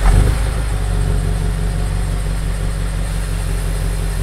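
2024 BMW 760i's twin-turbo V8 idling steadily.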